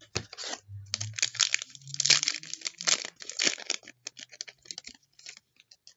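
A trading-card pack wrapper being torn open and crinkled, a dense run of sharp rustling and tearing that thins out near the end.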